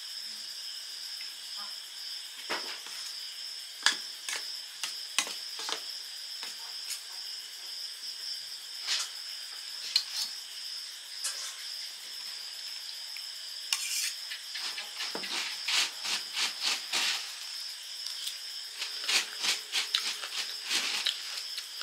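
A steel spoon clinking and scraping against steel bowls as puffed rice and ghugni are stirred and scooped, in scattered clicks that come thicker in the second half. A steady high insect chirring runs underneath.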